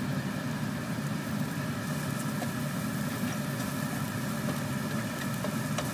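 Diced onion sizzling in hot oil in a nonstick frying pan, stirred with a wooden spatula with a few light clicks against the pan. A steady low mechanical hum runs underneath and is the loudest sound.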